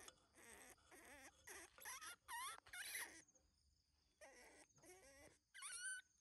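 Baby macaque monkey giving a run of short squeaky calls with a wavering pitch. The calls come in two groups about a second apart, and a last rising call ends the run.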